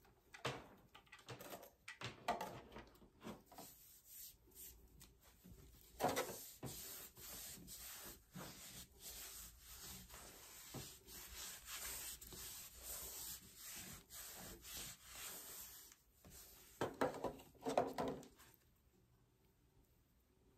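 A cloth towel rubbing and wiping against skin: an irregular scratchy rustle, with louder swipes about six seconds in and again near the end.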